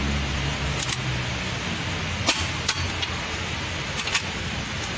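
A few sharp metal clicks and clinks, about four, as tools and parts are handled on a bare V6 cylinder head, over a steady hiss.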